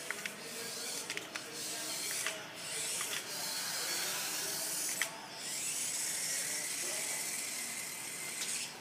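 A small mechanical toy whirring with scattered clicks, its whir dropping out briefly twice.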